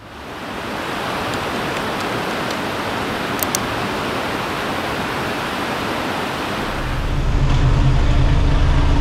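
Shallow stream flowing over pebbles, a steady rushing of water. About seven seconds in, a bus engine comes in underneath, a low running rumble with a steady hum.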